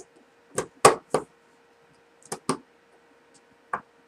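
Short sharp knocks and clicks of wooden handle scales and screws being handled and pushed onto a knife's metal handle: three in quick succession, two more about halfway through, and a last one near the end.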